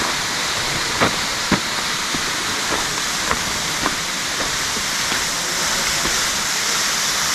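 Steady rush of a waterfall. Over it come regular footsteps on rock, about two a second, which fade out partway through.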